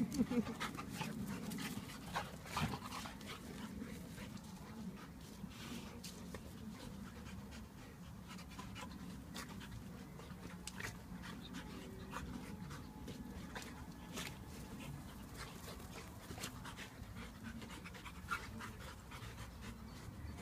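A yellow Labrador and a Japanese Akita panting hard while play-fighting, louder in the first three seconds, with scattered small scuffling clicks.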